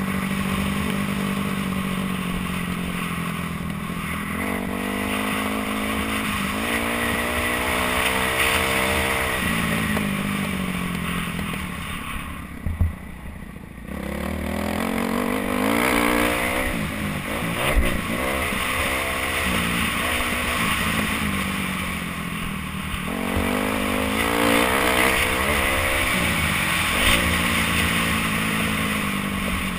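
Kawasaki KX250F single-cylinder four-stroke motocross engine revving up and falling back again and again as the rider works the throttle through the gears, heard from a helmet camera with wind rush over it. Around halfway the engine briefly falls off throttle, and there are a couple of sharp knocks a few seconds apart.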